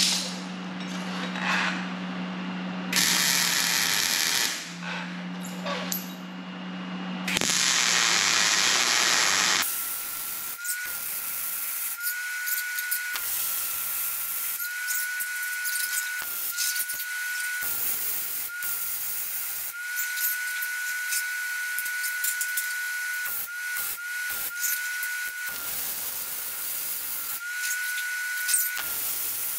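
MIG welding on steel: the arc crackles and sizzles in a run of short and longer bursts, starting and stopping as the torch is triggered, while steel tubing is tack- and stitch-welded to a truck frame rail. For about the first third it is a steady low hum with two loud hissing stretches instead.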